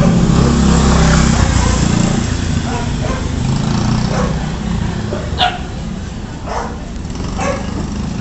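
A dog barking a few short times in the second half, over a small motorcycle engine running that is loudest in the first two seconds and then fades.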